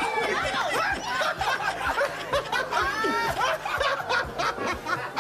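Several people laughing and chuckling, with short knocks mixed in among the voices.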